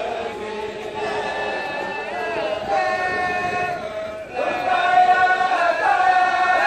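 A group of men's voices chanting a devotional chant together, on long held notes. The chant breaks off briefly about four seconds in and comes back louder.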